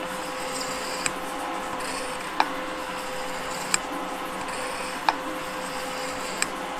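Gould & Eberhardt metal shaper running and cutting metal: a steady mechanical hum with a sharp click about every 1.3 seconds, five times.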